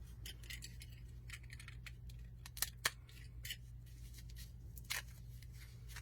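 Scattered small clicks, taps and rustles from items in an opened subscription box being handled, with two sharper clicks in quick succession a little before halfway and another near the end, over a low steady hum.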